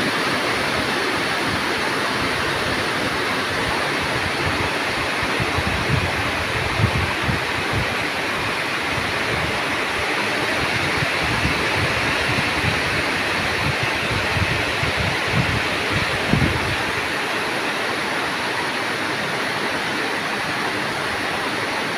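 Heavy rain falling steadily on a tropical forest canopy, a dense even hiss. Several low thumps come through partway in.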